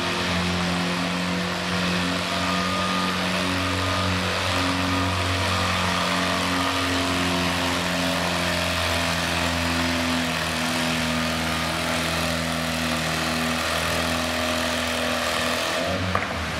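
Antique farm tractor engine working hard under load as it pulls a weight-transfer sled down a pulling track. It runs at a steady, unchanging speed and drops away near the end.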